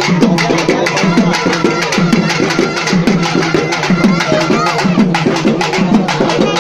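Traditional drum ensemble playing loud festival drumming: a fast, driving rhythm of many quick strokes with repeated low, pitched drum beats.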